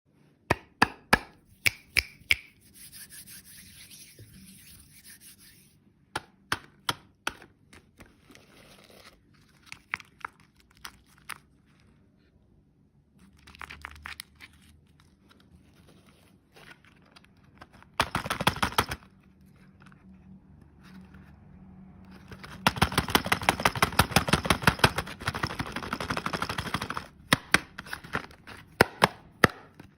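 Candy packaging being handled and opened: a string of sharp taps and clicks, with a short run of rapid crackling and a longer one later, like wrappers being crinkled and torn.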